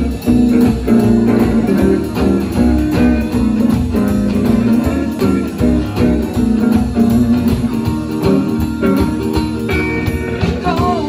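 A live band playing an instrumental intro on upright double bass, acoustic guitar, hollow-body electric guitar and drums, with a steady beat. A voice begins singing near the end.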